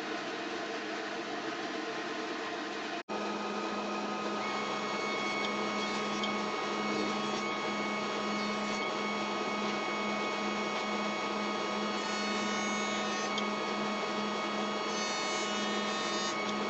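Table saw running for the first few seconds, then after an abrupt cut a benchtop jointer running with a steady hum while a board is jointed on it.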